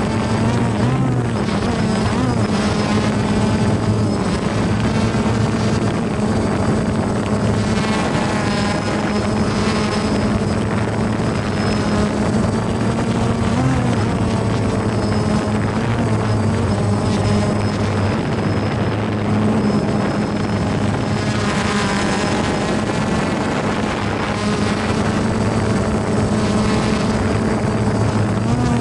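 Small drone's propellers buzzing steadily in flight, their pitch wavering up and down now and then as it manoeuvres.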